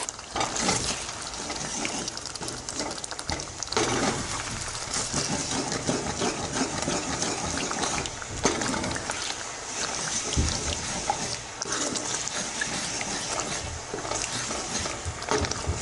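Curry masala sizzling in hot oil in a pan as yogurt is stirred in with a wooden spoon, with small clicks and scrapes of the spoon throughout.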